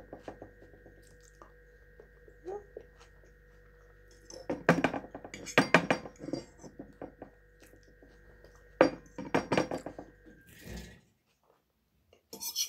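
A metal fork clinking and scraping against a frying pan in several short clusters of sharp clicks as food is picked up.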